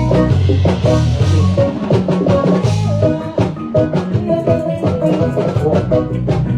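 A live band playing through the PA during a sound check: drum kit with steady beats and a cymbal wash in the first few seconds, over bass and other pitched instruments.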